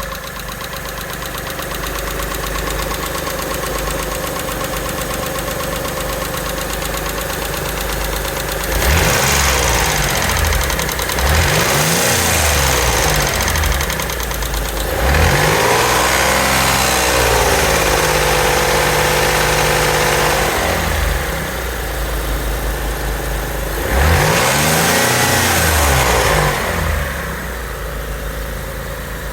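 Mitsubishi 3000GT's V6 engine idling, then revved up and back down several times, once held higher for a few seconds, before settling back to idle. It runs with a tick that the owner takes for lifter tick.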